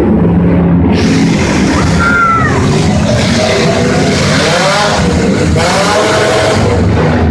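Demolition derby cars' engines running and revving loudly throughout, with several short pitched squeals rising and falling over them.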